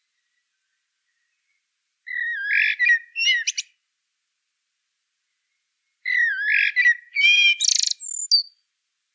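A songbird singing two warbling phrases with quick rises and falls in pitch: one about two seconds in and a longer one about six seconds in, with dead silence between them.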